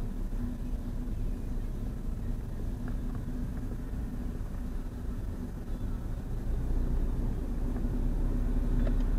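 Car engine and road noise heard from inside the cabin while driving, a steady low hum that grows louder about three-quarters of the way through.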